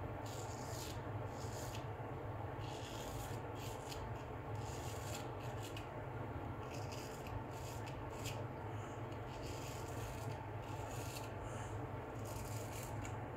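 Filarmonica 15/16 full-hollow straight razor scraping through lathered neck stubble across the grain, in many short, irregular strokes. It is the crisp rasp of a full hollow grind, which "sings" on the whiskers.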